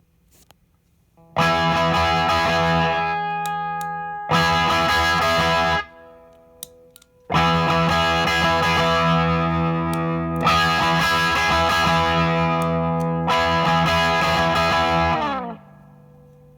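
Electric guitar played through a Marshall DSL 40CR combo's Celestion V-Type speaker with a TC Electronic MojoMojo overdrive pedal engaged at very low drive: five ringing chords, each struck, held, then muted. The pedal fattens and rounds out the tone, smoothing the speaker's spiky highs.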